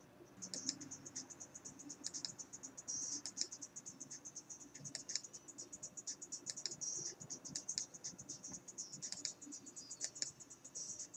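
Human teeth grinding: faint, rapid gritty scraping and clicking, many strokes a second, starting about half a second in and going on in uneven runs.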